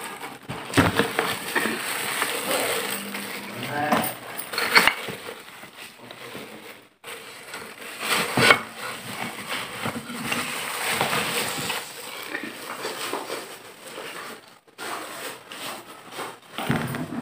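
Clear plastic bag rustling and crinkling as it is handled, with a few louder sharp crackles.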